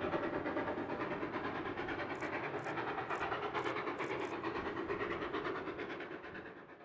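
Train running along the track: a steady rumble with rhythmic clatter, with a row of short high ticks about half a second apart in the middle. It fades out near the end.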